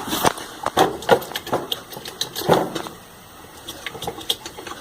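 Irregular clicks and light knocks of small electrical parts and wires being handled, about a dozen sharp taps with short gaps between them.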